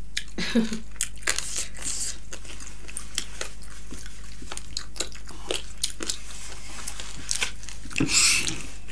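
Close-miked eating sounds: crunchy bites and chewing of fried chicken lollipop, with many short wet mouth clicks. A brief hummed sound comes about half a second in, and a louder breathy noise near the end.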